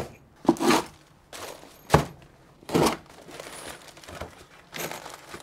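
Packaging being handled and torn open: a string of separate rustles and rips, with sharp knocks at the start and about two seconds in.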